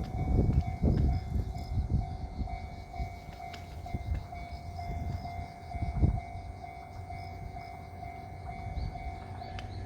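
Japanese railway level crossing's electronic warning bell ringing steadily at about two strikes a second, over a low, uneven rumble that swells and fades, typical of a train passing through the crossing.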